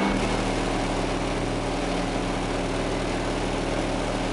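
Car audio subwoofers playing a steady, very loud low bass test tone for a sound-pressure-level tone test; the tone comes in sharply at the start and holds one pitch, heavily distorted on the microphone.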